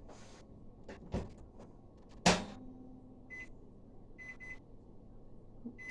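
Microwave oven door shut with a loud clunk about two seconds in, after a lighter click. Then short high keypad beeps as its buttons are pressed: one, then two close together, then one more at the end.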